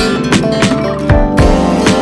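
Background music: fast plucked guitar with a steady beat.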